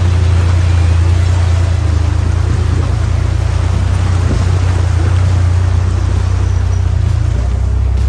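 1944 Willys Jeep's four-cylinder engine running in a steady low drone while driving through a river crossing. Water sprays and rushes off the front wheel in a continuous loud hiss.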